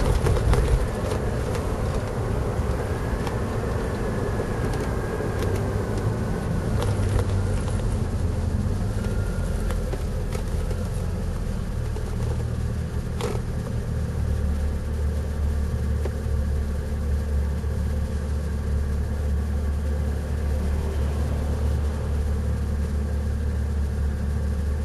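Road and engine noise inside a moving car's cabin: a steady low rumble, with a single sharp knock about halfway through.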